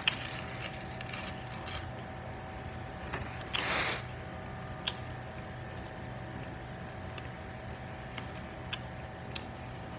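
A person chewing pizza with soft, scattered mouth clicks. About three and a half seconds in comes a brief scrape of a hand against the cardboard pizza box. A steady low hum runs underneath.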